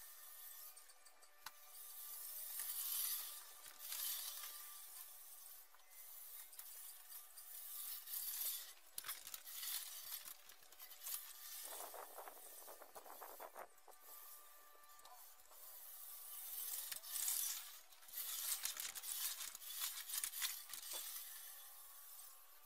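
Fiskars StaySharp Max push reel mower cutting grass: its spinning reel makes a faint whirring, rasping swish that swells and fades again and again as the mower is pushed back and forth.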